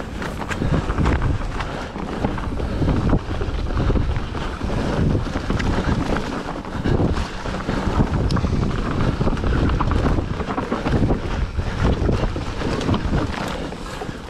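Mountain bike riding a forest dirt singletrack, heard from a camera on the rider: wind rushing over the microphone with heavy low rumble, tyres rolling over dirt and roots, and frequent short rattles and knocks from the bike.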